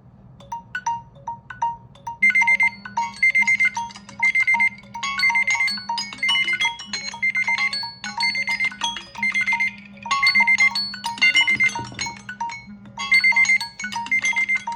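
Smartphone alarm tone ringing: a short phrase of bright, chiming mallet-like notes repeating over and over. It starts with soft single blips and grows louder about two seconds in.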